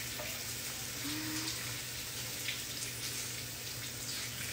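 Kitchen tap running in a steady stream of water.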